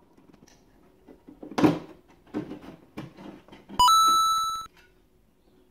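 A metal electrical back box being worked loose from a plasterboard wall by hand: a few knocks and scrapes, the loudest about a second and a half in. Just before the four-second mark a loud, steady electronic beep sounds, stepping up a little in pitch at its start, and stops abruptly under a second later.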